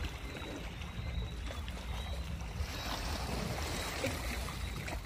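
Sea water sloshing and splashing over a steady low rumble, with a louder burst of splashing hiss about three seconds in.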